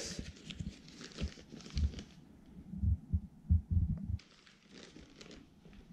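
Soft, irregular footsteps, about six dull low thumps between one and four seconds in, with faint rustling, as someone walks while carrying the camera.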